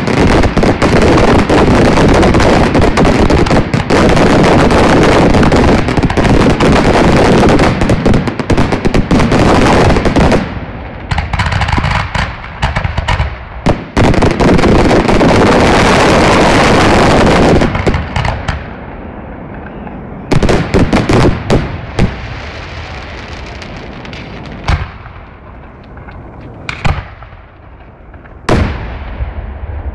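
Fireworks display's closing barrage: aerial shells bursting in a dense, continuous, very loud volley of bangs and crackle. The volley eases about ten seconds in, surges again briefly, then thins out near the end to single booms a second or two apart.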